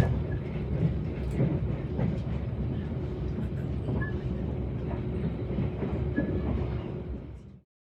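Passenger train running along the rails: a steady rumble with light knocks and a few short, high squeaks. It cuts off suddenly near the end.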